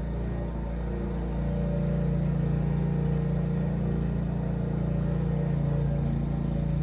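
Lawn mower engine running steadily, growing a little louder about a second and a half in.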